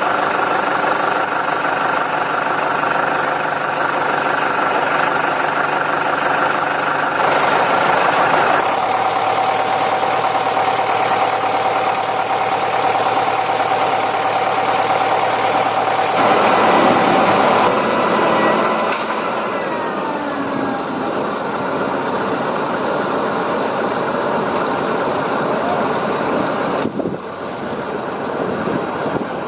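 Heavy diesel machinery engines running, changing sharply several times. About halfway through, the engine note rises and grows louder, then falls away in pitch.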